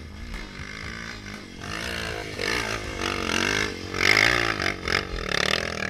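Single-cylinder four-stroke trail motorcycle engine revving up and down under load on a dirt climb, getting louder about two seconds in and loudest near the middle.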